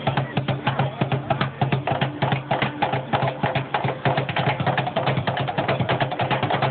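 Street drummers playing a fast, continuous groove on improvised drum rigs of buckets and coolers, with a steady low tone beneath the rapid hits.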